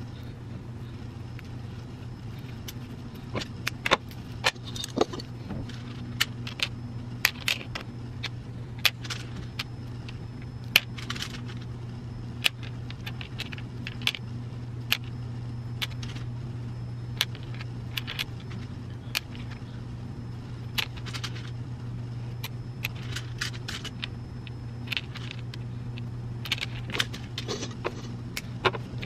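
Plastic pony beads and letter beads clicking against each other and the plastic bead tray as they are threaded onto elastic cord: irregular sharp clicks and small rattles, over a steady low hum.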